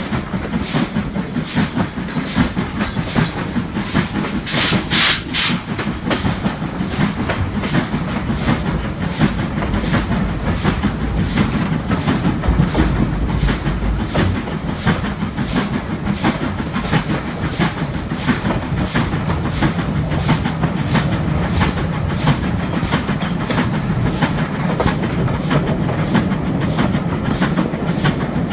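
Stanier Black 5 two-cylinder 4-6-0 steam locomotive working a train, its exhaust beating evenly at about two beats a second, with the carriage wheels clattering over the rail joints. About five seconds in there is a brief burst of hiss.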